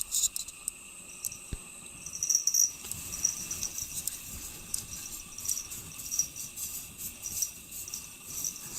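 Short high chirps repeating about twice a second from about two seconds in, with light clicking and ticking.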